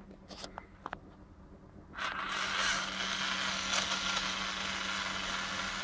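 A few faint clicks, then about two seconds in a toy drill's small electric motor starts and whirs steadily as the bit is pressed against a wall.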